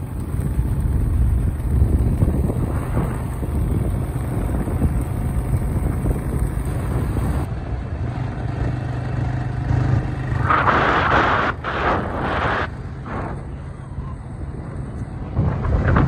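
Wind rumbling on the microphone over a vehicle engine's steady low hum. In the second half come a few louder gusts of wind noise.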